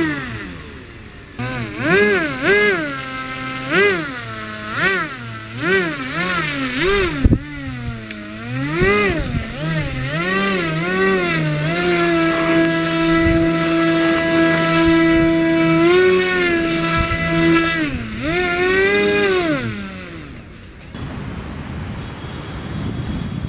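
Homemade RC airboat's electric motor and propeller revving up and down in quick swells as the throttle is worked, then held at one steady pitch for a few seconds before more revs. The motor stops about 21 seconds in.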